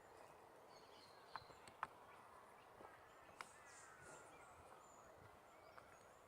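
Very faint distant birdsong in a quiet dawn: short high chirps and thin falling whistles. A few sharp clicks stand out above it.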